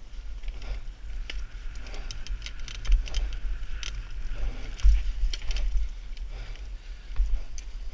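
Mountain bike descending a dirt forest trail, heard from a helmet-mounted GoPro: a steady wind rumble on the microphone, tyres rolling over dirt and roots, and many sharp rattles and knocks from the bike over bumps.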